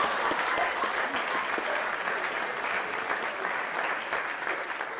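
Audience applauding in a theatre: a dense, steady patter of hand claps that begins to die down near the end.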